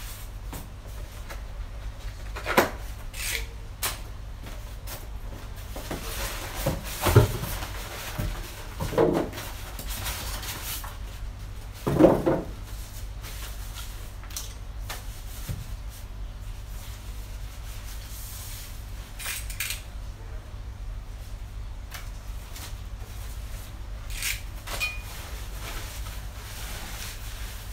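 Packaging being handled while a subwoofer is unpacked: styrofoam packing blocks knocked and pulled off, and plastic wrapping rustling. Scattered knocks and scrapes come mostly in the first half, the loudest about twelve seconds in.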